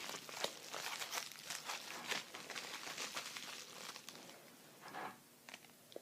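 Packaging crinkling and rustling as it is handled: a run of small crackles that thins out near the end.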